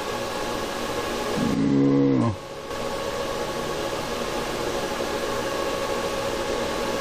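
Steady hiss and hum of room and equipment noise, with a short, low voice sound falling in pitch about two seconds in.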